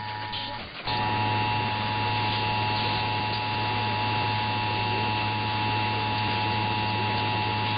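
Emergency Alert System two-tone attention signal: two steady tones sounding together, marking the start of an EAS test broadcast. It drops out briefly less than a second in, then resumes louder and holds steady.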